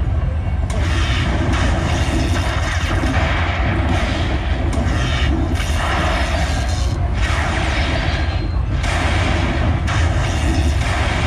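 Lightning Buffalo Link slot machine's bonus-payout sound effects: a string of thunder-like booms and crackles, one after another, over the game's music and a low steady rumble, as each lightning strike collects a buffalo's cash value into the win meter.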